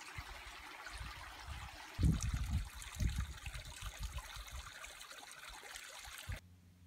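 Water trickling steadily into a rock pool, with a few low bumps about two and three seconds in. Near the end it gives way to a faint low hum.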